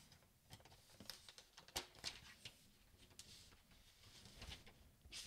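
Faint rustling and soft scattered ticks of a laptop's protective paper wrap being peeled back from its underside, with hands pressing and shifting the laptop on a desk.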